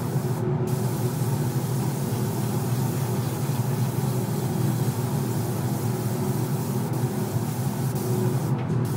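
Compressed-air spray gun hissing steadily over a steady machine hum, the spray cutting out briefly about half a second in and again near the end.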